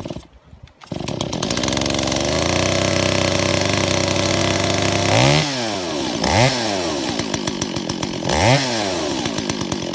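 A two-stroke chainsaw is pull-started with its easy-start engaged and catches about a second in. It then runs at a steady fast idle and is revved up and back down three times.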